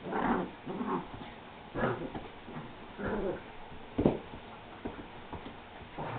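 An Alaskan Malamute and a beagle puppy play-fighting, giving short dog vocalizations a second or so apart, with a sharp knock about four seconds in.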